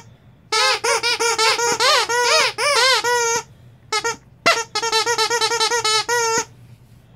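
Pup Squeakz plush bear dog toy with a double squeaker, squeezed rapidly by hand: a quick run of squeaks for about three seconds, a brief pause broken by two single squeaks, then another quick run that stops shortly before the end.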